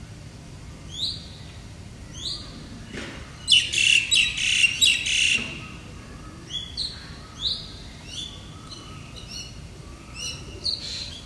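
Birds calling: short high chirps every second or so, with a loud burst of rapid, harsh chattering about three to five seconds in.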